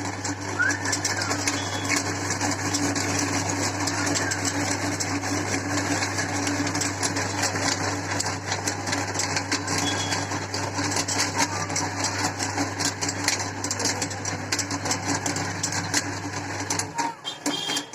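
Electric meat grinder running steadily, with crackling as it grinds dry Maggi instant noodles; the motor hum cuts off near the end.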